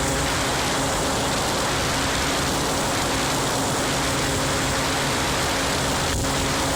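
Aprilia Ditech scooter's two-stroke Morini engine running at a steady pitch on a test ride, largely buried under heavy wind noise on the microphone.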